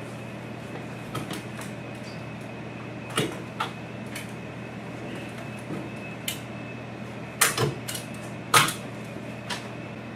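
A stapler being opened, loaded with a strip of staples and snapped shut: a scattering of sharp clicks and snaps, the loudest two close together about two thirds of the way through, over a steady room hum.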